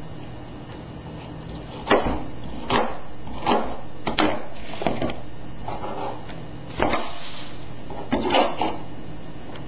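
Kitchen knife cutting an onion on a cutting board: irregular knocks of the blade against the board, roughly one a second, starting about two seconds in, over a steady low hum.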